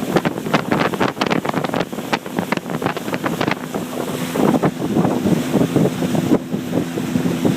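Wind buffeting the microphone with water splashing. About four seconds in, a boat motor's steady low hum comes in and keeps running.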